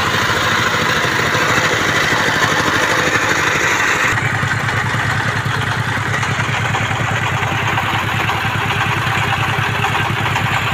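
Single-cylinder diesel engine of a công nông farm truck running steadily with a fast, even chugging; its low note grows louder about four seconds in.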